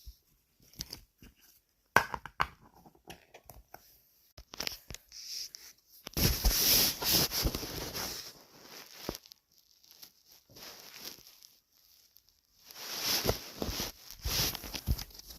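A dumpling-shaped squishy toy being squeezed and handled, making crinkling, crackling sounds with scattered clicks. It comes in two louder stretches: one about six seconds in lasting a few seconds, and another near the end.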